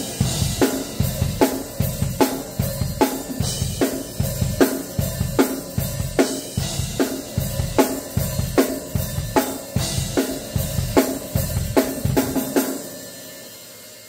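Pearl drum kit played with sticks in a steady hard-rock beat: snare hits about every three-quarters of a second over a busy bass drum and cymbals. The playing stops about three-quarters of the way in, and the cymbals ring out and fade.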